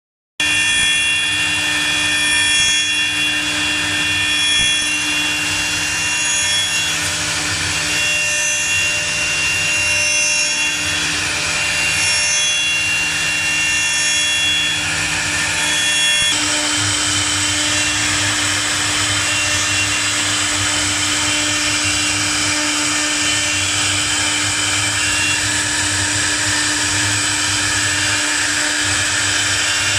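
Air-cooled 4.5 kW CNC router spindle running at speed with a steady whine, its bit cutting into a wooden cylinder turning in the rotary attachment. About halfway through, the sound changes abruptly to two spindles engraving a flat panel, with a fuller, hissier cutting noise.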